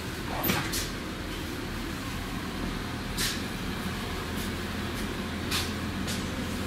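Steady low rumble and hum of a vehicle in motion, heard from inside the passenger cabin, with a few short clicks and rattles.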